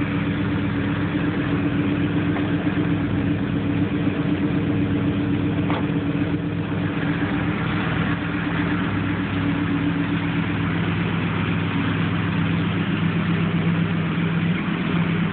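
Large engine of a custom 1958 Ford pickup with dual exhaust pipes, idling steadily.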